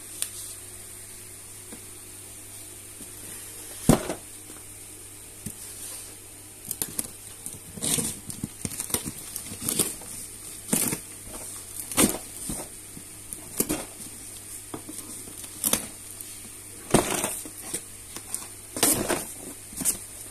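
A cardboard shipping box being opened: packing tape is slit and torn along the seam, the flaps are pulled open and the plastic wrapping inside rustles. It comes as irregular scrapes, rips and crackles, starting with a sharp knock about four seconds in and growing busier toward the end.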